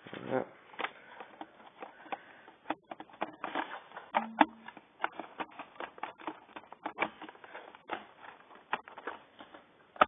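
Irregular clicks and taps of a PowerBook G3 Pismo's plastic keyboard as it is pressed down and handled.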